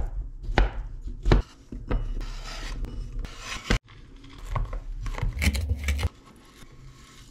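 A kitchen knife roughly chopping green olives and then fresh rosemary on a wooden chopping board: a series of sharp knocks of the blade hitting the board.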